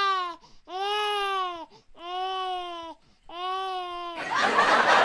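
A baby crying in a run of drawn-out wails, each about a second long with short breaks between. About four seconds in, a loud noisy hubbub like crowd chatter cuts in.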